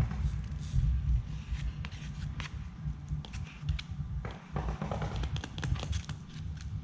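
Scattered clicks and scrapes of a tool stirring and scooping two-part concrete patch compound, over a steady low rumble.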